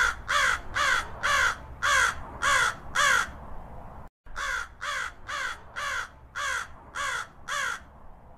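Crow cawing in a quick series of about seven calls, roughly two a second. It cuts to silence for a moment about four seconds in, then a second, quieter run of about seven calls follows.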